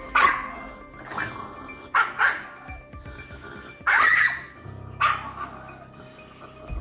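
Shiba Inu in attack mode, barking and snapping in about six short bursts, the loudest and longest about four seconds in, the sound of an angry dog lunging to bite a hand. Background music plays throughout.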